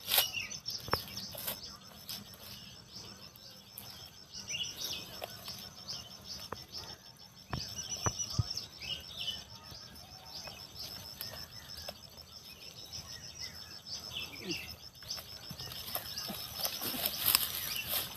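Feet scuffing and sliding down a steep bank of loose dry earth, with dry grass rustling and a few sharp knocks near the middle. Birds chirp and insects call steadily in the background.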